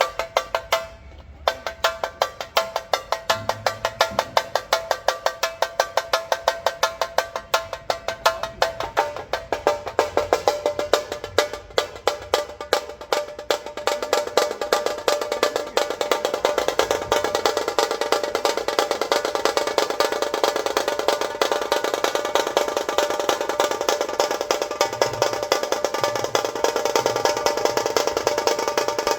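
Tasha drums struck with sticks in a fast, sharp rhythm that tightens into a near-continuous roll about halfway through. A few low dhol beats sound underneath near the end.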